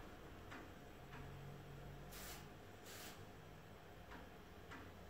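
Floppy drive faintly clicking as its read head steps during a Windows 98 ScanDisk surface scan. There are single clicks about half a second apart near the start and again near the end, two short hissing bursts in the middle, and a low hum about a second in.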